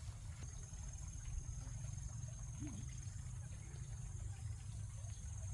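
A steady, thin, high-pitched insect call begins about half a second in, over a constant low rumble and a few faint scattered clicks.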